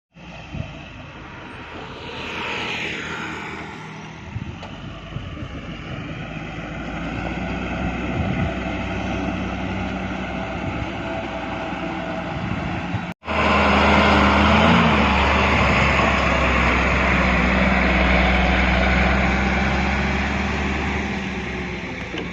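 Heavy diesel engine running steadily, with a falling whine a couple of seconds in. After a sudden break about 13 seconds in, the engine is louder and revs higher.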